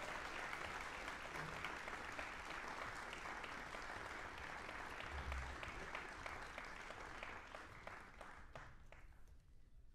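Audience applauding, a dense patter of clapping that thins and dies away over the last couple of seconds.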